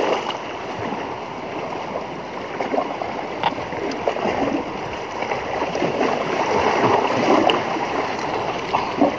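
Sea water washing and splashing irregularly against shore rocks, with the noise swelling and falling.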